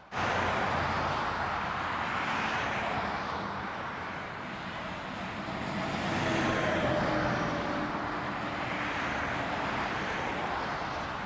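Steady rushing drone of a distant engine, swelling a little in the middle with faint held tones, then easing.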